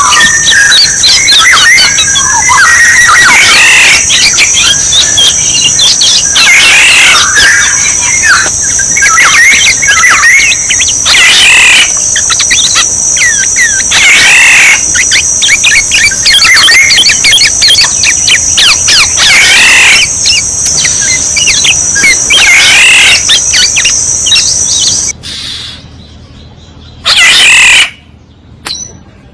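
Oriole calls from a bird-decoy call recording, repeating every few seconds over a steady high hiss. The sound cuts off suddenly near the end, leaving two short loud bursts.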